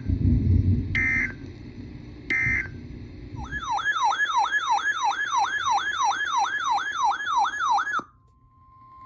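Emergency Alert System tones. Three short bursts of screechy digital data tones come about a second apart. Then a siren-like alert tone warbles up and down about three times a second and cuts off abruptly. A steady single alarm tone starts near the end.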